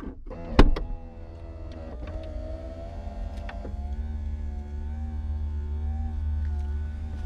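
Bentley Continental GT's powered boot lid opening: a thump about half a second in, then the lid's electric motor running with a steady hum as the lid lifts.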